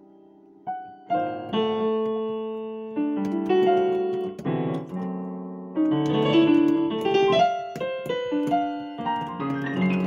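Digital piano played with both hands in a piano voice: a held chord fades out, then about a second in a new phrase starts with struck chords and melody notes, each note ringing and dying away.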